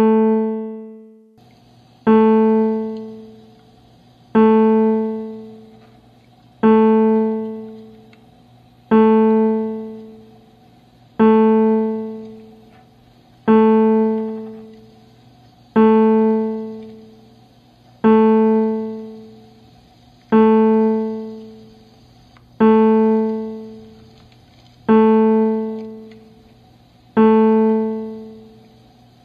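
Music: a single piano note at the same pitch, struck over and over about every two and a quarter seconds, each strike fading away before the next.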